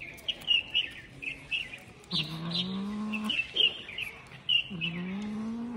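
A cat growling twice while guarding food: two drawn-out low moans, each about a second long and rising in pitch. Small birds chirp rapidly in the background throughout.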